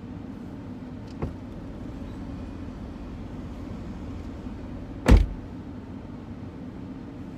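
Inside a Cadillac SUV, a light click about a second in as the passenger door opens, then the door shuts with a loud thump about five seconds in, over the steady low hum of the vehicle's cabin.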